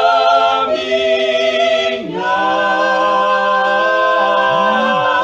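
Three voices, two women and a man, singing a Portuguese gospel hymn a cappella in harmony with long drawn-out notes. The chord changes about two seconds in and is then held steadily to the end.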